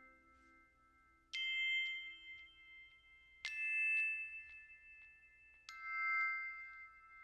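Ambient background music: three soft bell-like chime notes, struck about two seconds apart, each ringing out slowly.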